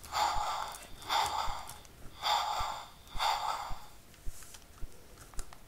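Tomy InterAction Tiny Pteranodon toy playing its electronic wing-flapping sound effect as its wings are moved: four short rushing bursts about a second apart.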